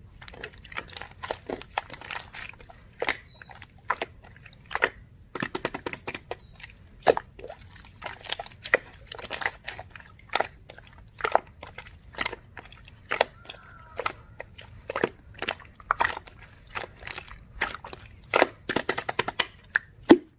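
Clear slime being squished and pressed by hand, giving irregular wet clicks and pops, sometimes several in quick succession.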